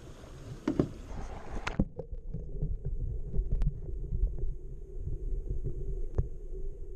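A camera dipped from a kayak into murky lake water: a couple of handling knocks, then a splash about two seconds in as it goes under. After that the sound is muffled underwater, a low rumbling with scattered faint clicks.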